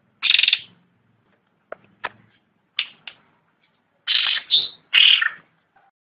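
Cucak rante songbird calling: a burst of high calls at the start, a few short sharp notes in the middle, then three longer bursts of calls near the end, with silent gaps between.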